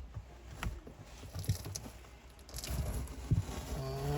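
Scattered low thumps, rustling and a sharp click as old spray-glued car carpet is pulled and worked loose from the floor pan, with a short pitched sound near the end.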